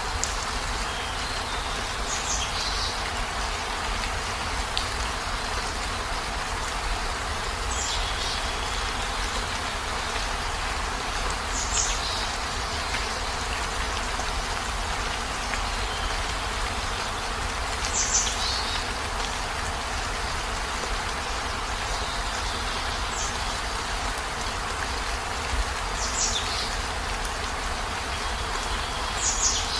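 Heavy rain falling steadily, an even hiss. Short high-pitched sounds stand out above it about every four seconds, seven times in all.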